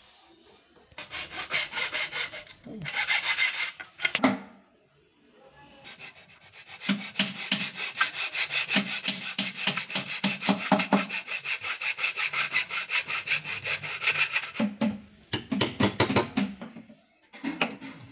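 Small hand saw cutting across a thin wooden beading strip in rapid back-and-forth strokes, several a second. The sawing comes in spells with short pauses between, the longest spell in the middle.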